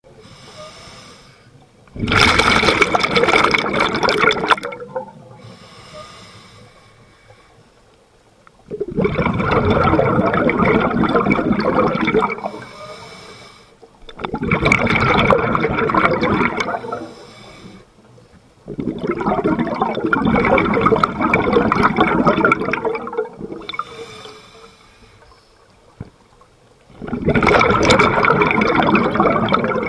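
Scuba diver exhaling through a regulator underwater, close to the microphone: five long surges of bubbling, each two to four seconds, coming about every five to six seconds in the rhythm of breathing, with much quieter stretches between as the diver inhales.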